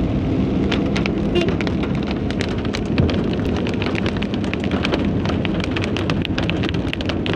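Heavy rain pelting the car's windscreen and roof, heard from inside the cabin as a dense patter of sharp drop impacts over the steady low rumble of the car driving on a wet road.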